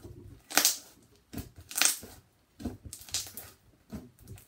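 Hands squishing and pressing a white slime made with soap and shaving cream, giving irregular wet squelches and crackles about once a second.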